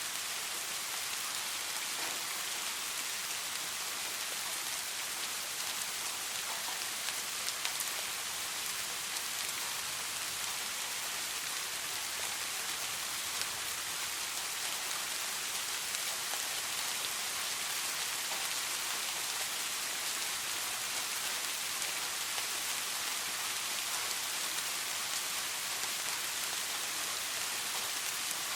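Steady soft rain falling, an even hiss with scattered individual drop ticks.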